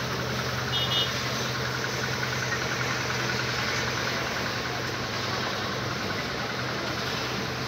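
Street traffic noise with a motor vehicle's engine idling nearby, a steady low hum that drops away about six seconds in. A brief high beep sounds about a second in.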